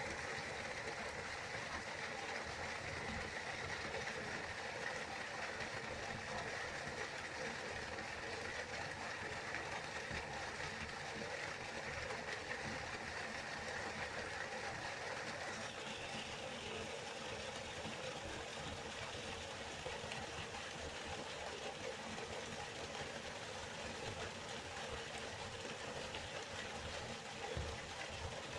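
River water flowing in a steady rush of noise. A little past halfway its character changes abruptly, the hiss becoming brighter.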